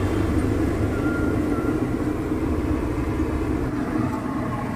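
Steady street traffic noise, an even low rumble of passing vehicles.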